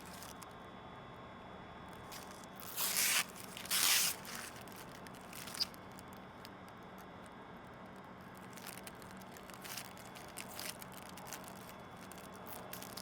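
Protective plastic film being peeled off a clear plastic airbox lid: two short ripping sounds about three and four seconds in, followed by a sharp click and lighter handling ticks and rustles.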